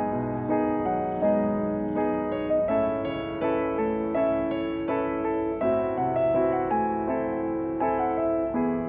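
Background piano music: a steady run of single notes over held chords.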